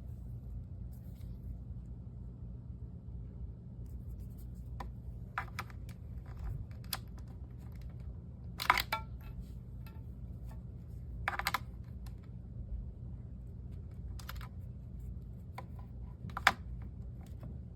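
Scattered clicks, taps and short rustles of objects being handled, over a steady low hum. The loudest clicks come about nine and sixteen seconds in.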